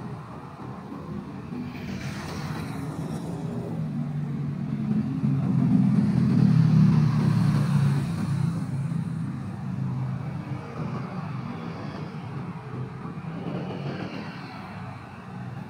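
Busy street traffic, with a motor vehicle's engine rumble growing louder, passing close about six to eight seconds in, then fading.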